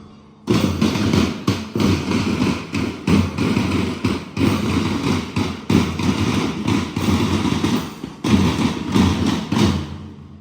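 Marching band drums beating a fast, dense rhythm of strikes, breaking off briefly at the start and about eight seconds in.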